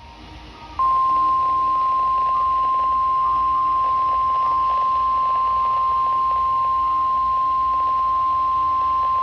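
NOAA Weather Radio warning alarm tone, a single steady 1050 Hz tone, over radio hiss. It starts about a second in and holds unbroken, the signal that a warning broadcast, here a flash flood warning, is coming.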